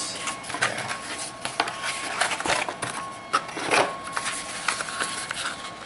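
Cardboard packaging being handled: irregular scraping, rustling and light tapping as small cardboard pieces and a small box are lifted, turned over and pried at.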